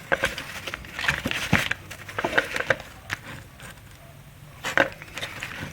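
Scattered small clicks and taps from handling a plastic wiring connector and a crimped wire terminal as the pin is pushed into its slot.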